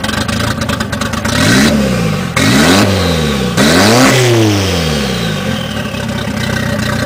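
Car engine revved three times in quick succession, each rev climbing and falling back, then settling to a steadier run.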